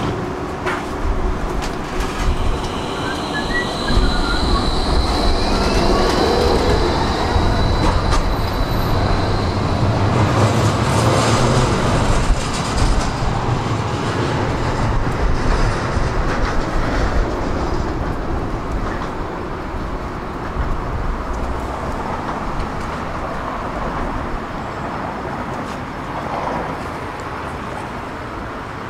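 Tram running along its rails, with a high, steady wheel squeal that starts about two seconds in and fades out by about nine seconds. The running noise grows louder toward the middle, then eases off toward the end.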